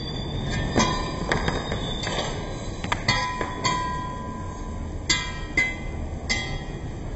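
Steel circular saw blade hung on a strap, spinning and swinging against a wall. About ten irregular strikes as its teeth catch the wall, each ringing out with the same metallic tones over a scraping rumble.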